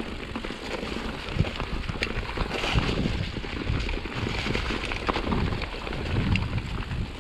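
Bicycle rolling fast down a rough dirt trail: tyres rumbling over stones and roots, with scattered knocks and rattles from the bike.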